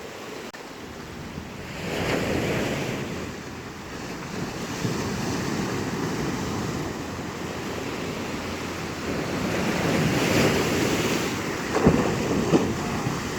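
Rough sea surf breaking, with waves surging up about two seconds in and again around ten seconds in, and strong wind buffeting the microphone. There are two short sharp knocks near the end.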